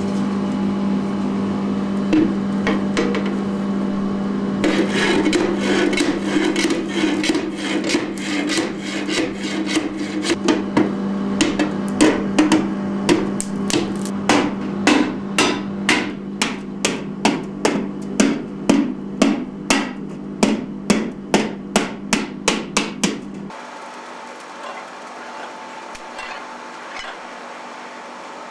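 A steady hum from the forge, with irregular knocking and scraping of metal that settles into about two sharp strikes a second. The hum and the strikes stop suddenly near the end, leaving a quieter background.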